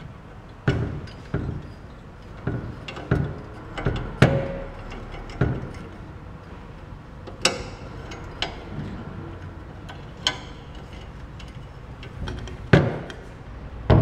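Irregular knocks and clicks from handling a metal exercise-bike frame while a sensor cable is fed through its tubes, about a dozen spread unevenly over the stretch. The loudest comes about halfway through, and another near the end.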